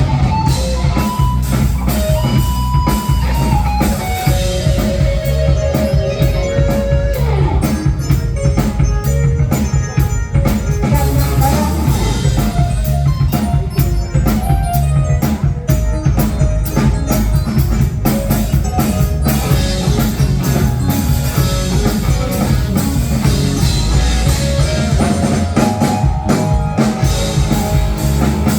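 A live rock-funk fusion band playing an instrumental passage on drum kit, bass and guitar. A lead line holds long notes and slides down in pitch about seven seconds in, over a busy drum groove.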